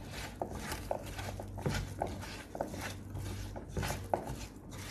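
A hand rubbing wet masala paste over whole tomatoes, onions and pieces of carrot and capsicum in a pot: soft squelching broken by short knocks of vegetables against the pot, about two a second. A steady low hum runs underneath.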